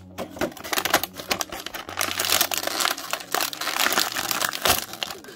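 Thin clear plastic packaging crinkling and rustling in irregular crackles as an action figure is handled and pulled out of it.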